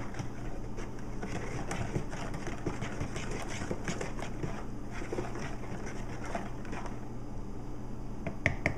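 Wooden spoon stirring milk into a creamed peanut butter mixture in a bowl: soft, irregular scraping and sloshing over a steady low hum, with a few sharper clicks near the end.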